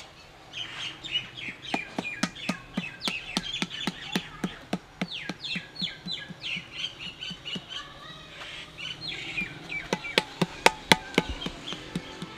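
Flat wooden paddle beating a round clay pot in steady strokes, about three a second, shaping the pot's wall; the strokes are strongest near the end. Birds chirp throughout.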